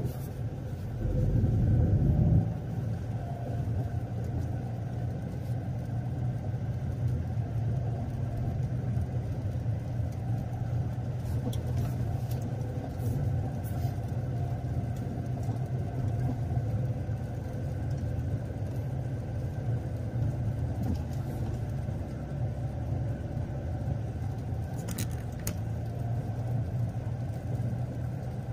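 A car driving, with a steady low engine and road rumble. About a second in, a louder low rumble swells for a second and a half.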